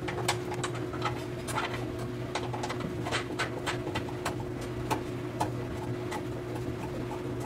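Small irregular clicks and ticks of metal flange nuts being threaded by hand onto the brake power booster's studs at the firewall, over a steady low hum.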